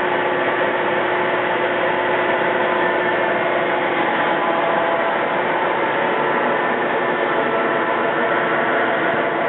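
DoAll 13 13"x40" engine lathe running under power with its spindle turning, a steady machine noise with several constant tones in it. One of the tones drops out about four seconds in.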